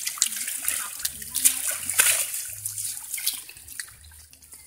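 Shallow ditch water splashing and sloshing as a mesh fishing net is dragged through it and lifted out, with a run of irregular splashes strongest about two seconds in, easing to quieter trickling near the end.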